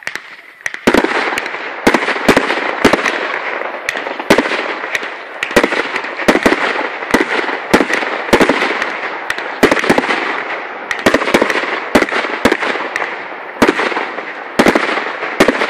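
Fireworks display going off: many sharp bangs, about two a second, over a continuous crackling hiss, starting about a second in.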